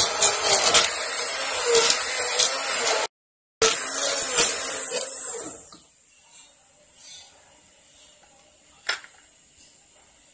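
Electric hand (immersion) blender running in hot tomato soup in a pressure cooker pot, blending the boiled tomatoes and onions smooth. It breaks off for half a second about three seconds in, runs again, and stops about five and a half seconds in, leaving a few faint knocks and one sharp click near the end.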